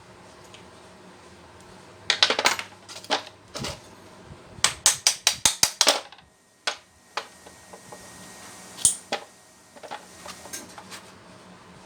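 Sharp metal knocks and clatter from work on a dismantled electric jackhammer. The knocks are scattered, with a quick run of about nine taps a little past the middle.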